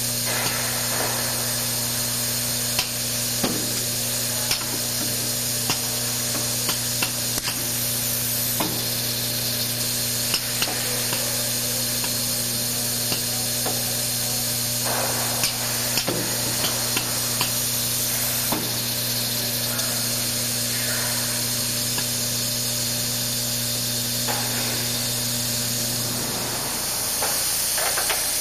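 Manual needle bearing insert machine running: a steady electrical hum under a constant hiss, with scattered light mechanical clicks. The hum stops a couple of seconds before the end.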